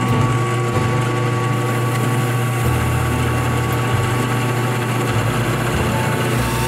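Drill press running with a small buffing wheel in its chuck, a steel double-bit axe head pressed against the wheel to polish it: a steady motor hum with an even hiss.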